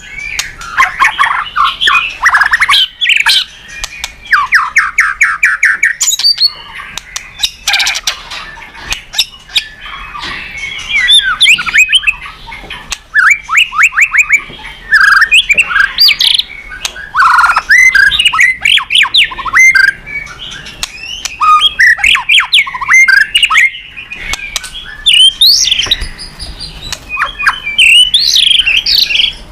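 White-rumped shama (murai batu) singing a long, loud, varied song: fast trilled rattles, sharp rising and falling whistles and harsh notes in quick phrases with brief pauses between them.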